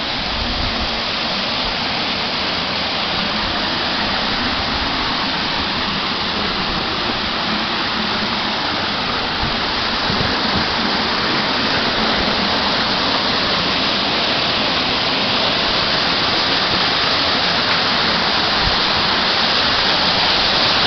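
Waterfall rushing: a steady, dense roar of falling water, growing a little louder near the end.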